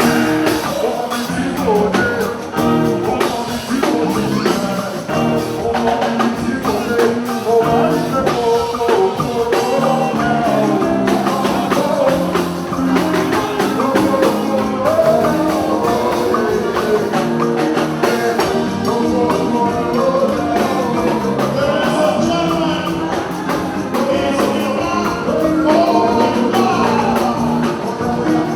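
Music with singing: gospel praise song performed with a band.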